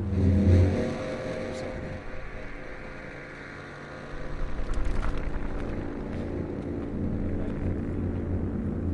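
Unexplained 'strange sky sound' of the kind called sky trumpets: a loud drone of several steady tones at once over a deep rumble. It comes in suddenly and swells again about four seconds in. One listener likens it to construction on a highway.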